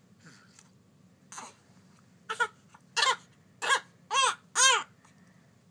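Newborn baby fussing: a run of about five short, rising-and-falling cries, each louder than the one before.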